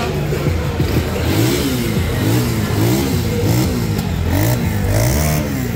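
Motorcycle engine being revved in quick repeated blips, its pitch rising and falling about twice a second.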